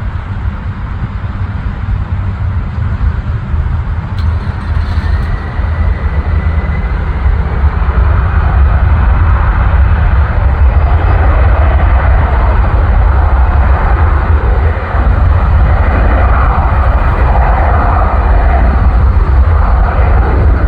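Jet engines running loud during a takeoff, with a heavy low rumble throughout. A faint rising whine comes through about five seconds in, and the roar grows louder a couple of seconds later and holds.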